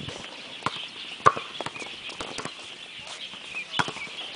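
A volleyball being struck and bouncing on a hard court: a series of sharp slaps, irregularly spaced, the loudest about a second in.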